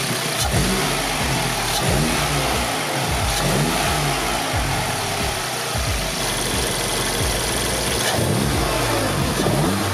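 VW Mk7 Golf R's turbocharged 2.0-litre four-cylinder engine free-revving in repeated throttle blips, its pitch rising and falling again and again, heard through an intake fitted with an 034 Motorsport turbo inlet hose.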